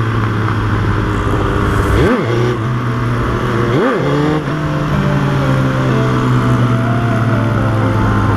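Motorcycle engine running at a steady cruise under wind rush on the microphone, with two quick revs about two and four seconds in.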